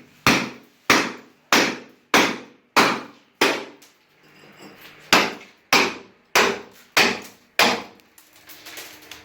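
Hammer blows breaking out cement around a toilet's floor connection, one strike about every 0.6 s. There are six strikes, a pause of about a second and a half, then five more.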